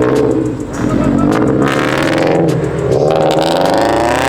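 Car engine revving hard and accelerating, its pitch climbing steadily through the second half.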